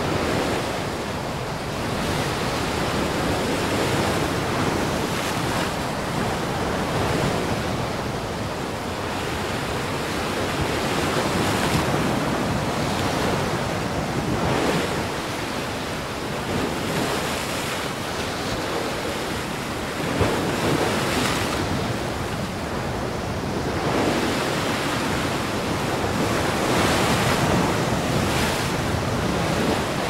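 Heavy surf driven by gale-force wind: waves breaking in a continuous wash that swells every few seconds, with wind buffeting the microphone.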